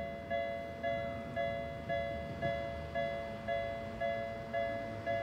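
Japanese railway level-crossing alarm ringing: an electronic two-tone bell struck steadily, a little under two strikes a second.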